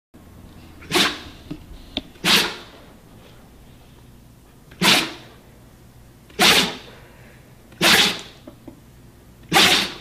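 A husky sneezing six times in a row, short sharp bursts one to two and a half seconds apart, with a few faint snuffles between them.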